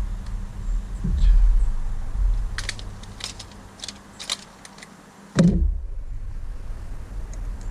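A handful of light metallic clicks and clinks from small parts being handled, then a single knock about five and a half seconds in, over a low rumble.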